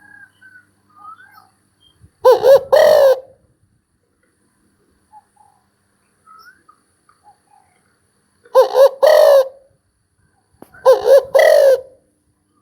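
Spotted dove cooing: three loud phrases a few seconds apart, each a quick double coo running into a longer drawn coo. Faint chirps of other small birds are heard between the phrases.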